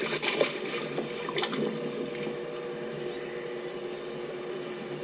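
Choppy water splashing and sloshing against the boat, with a few sharper splashes in the first two seconds over a steady hum.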